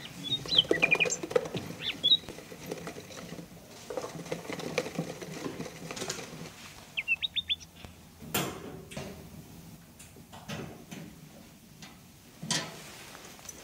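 Budgerigar chirping in short quick clusters near the start and again about seven seconds in, over soft tapping, with two sharp knocks about eight and twelve and a half seconds in.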